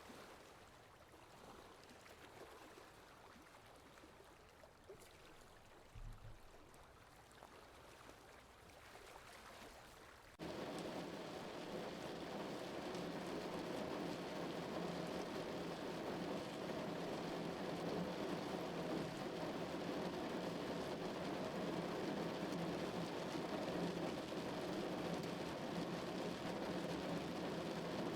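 Soft water sound that cuts abruptly about ten seconds in to louder, steady rainfall.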